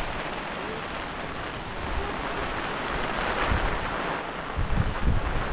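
Steady rushing of wind, with a few low gusts buffeting the microphone near the end.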